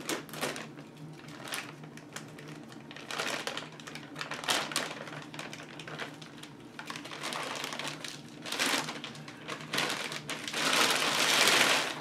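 Plastic packaging bag crinkling and rustling in uneven handfuls as it is cut open and pulled apart, with scattered clicks and taps; the longest, loudest rustle comes near the end.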